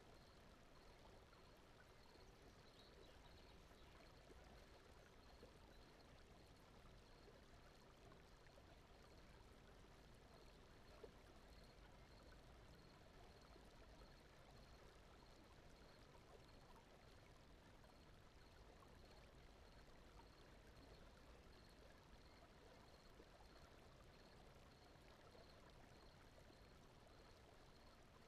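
Faint, steady brown noise: a soft, even rushing like a distant stream. A faint, evenly repeating high chirp runs underneath.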